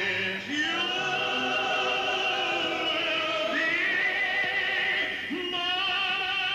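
A man singing a stage ballad in a big, operatic style, holding long notes with heavy vibrato. He sustains three notes, each sliding up into pitch, with the new notes beginning about three and a half and five seconds in.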